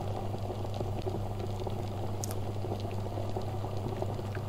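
Water boiling in a Medicare electric steam inhaler: a steady bubbling with scattered small pops, over a low steady hum, as the water reaches the boil and steam starts to come out.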